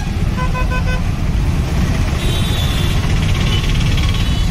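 Steady low rumble of road traffic from motorcycles and trucks held in a jam, with a vehicle horn giving four short beeps about half a second in.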